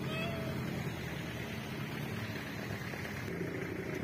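A steady low hum with hiss, and a brief faint rising call with a few overtones right at the start.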